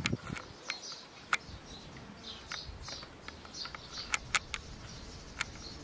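Small birds chirping again and again in short high calls, with a few sharp clicks scattered through.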